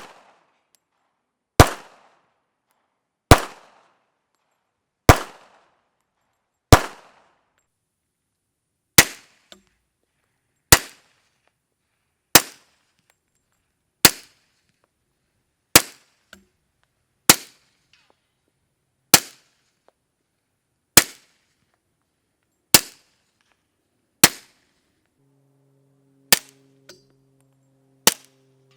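Suppressed pistol shots through a Rugged Suppressors Obsidian 45 silencer, fired one at a time at a steady pace of about one every one and a half to two seconds, about sixteen in all, each a sharp crack with a short tail.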